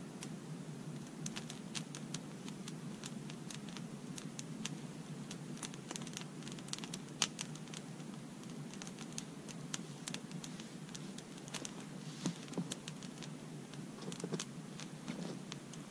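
Wood campfire burning, crackling with scattered sharp pops over a steady low rush of flame; one pop about seven seconds in is louder than the rest.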